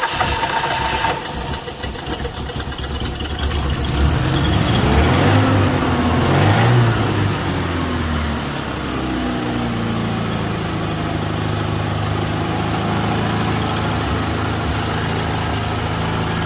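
Nissan S12 200SX engine, started by bypassing a worn-out ignition lock, running roughly at first and revved up about four to seven seconds in. It then settles into a steady idle.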